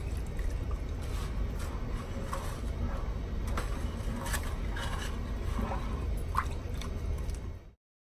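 A wooden spoon stirring a milk and gram-flour mixture in a metal saucepan: liquid sloshing, with scattered light knocks and scrapes of the spoon against the pot over a steady low rumble. The sound cuts off abruptly near the end.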